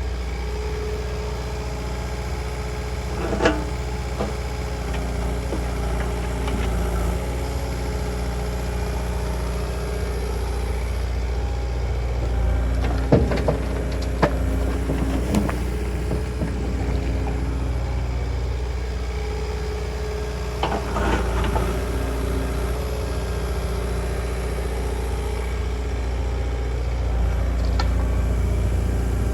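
Diesel engine of a piece of compact construction equipment running steadily, with a few sharp metallic clanks about 3, 13, 14 and 21 seconds in.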